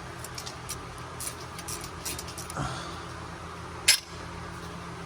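Light metallic clicks and taps of hand tools working to free a fuel injector from the engine, with one sharp click about four seconds in, over a steady low hum.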